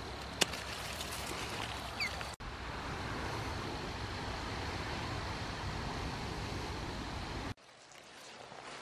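A single sharp snip of small hand pruners cutting through a zinnia stem, with a fainter click about two seconds in, over a steady low rumble and hiss.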